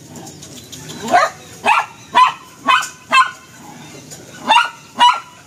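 A dog barking in short, sharp, high barks, about two a second, starting about a second in, with a brief pause a little past the middle.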